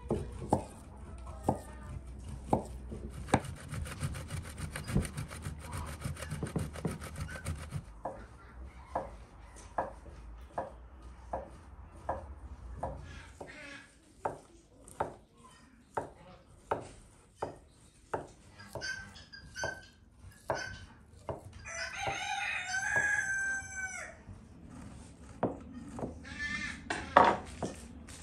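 A rooster crows once, about three-quarters of the way through, over a steady run of light knocks at about one every two-thirds of a second.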